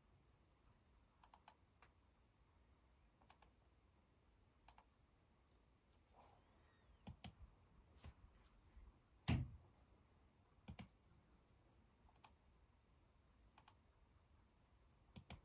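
Faint, scattered clicks and taps of a computer mouse and keyboard over quiet room hiss, with a few clicks close together and one louder, duller knock about nine seconds in.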